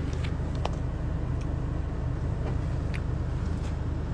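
Steady low rumble of a vehicle heard inside its cabin, with a few light clicks and taps from the phone being handled.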